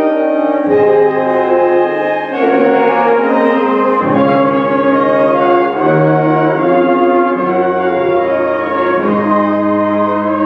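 Concert band playing a slow hymn-like passage of sustained brass chords, moving to a new chord every second or two.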